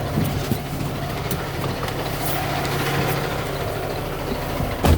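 Truck engine running with a steady low hum. A single thump comes just before the end.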